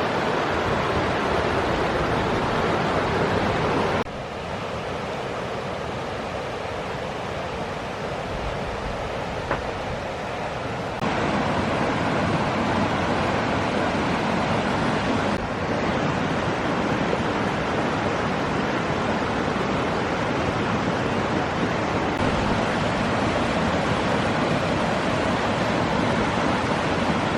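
Mountain creek rushing in a steady wash of water noise. It drops quieter about four seconds in and comes back up about eleven seconds in.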